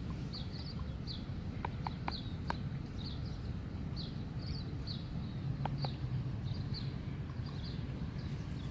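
A small bird chirping over and over: short, high, falling chirps about twice a second, with a few faint clicks and a steady low rumble from wind on the microphone.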